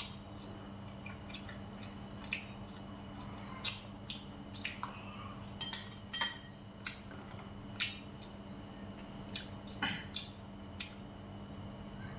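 Metal spoon and chopsticks clinking and scraping against a ceramic rice bowl: scattered sharp clicks, the loudest cluster about six seconds in, over a steady low hum.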